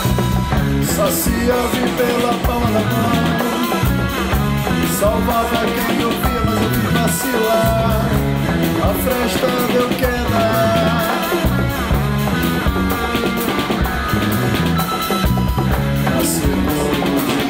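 Rock band playing an instrumental passage: a drum kit keeps a steady beat under guitar and bass.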